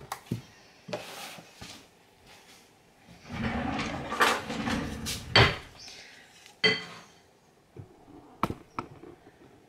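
Kitchen handling sounds: scattered knocks and clatter, with a louder rattling stretch of about two seconds around the middle. Then a short ringing clink and a sharp knock follow as a wooden spoon is brought to the glass mixing bowl.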